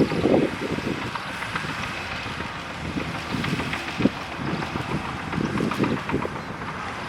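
Diesel engine of heavy earthmoving machinery running steadily, with wind buffeting the microphone in irregular low gusts, strongest at the very start.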